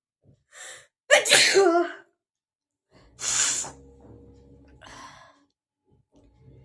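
A person sneezing twice in quick succession, both loud: a short intake of breath, then a voiced sneeze about a second in, and a second, breathier sneeze two seconds later. A shorter breathy sound follows near the end.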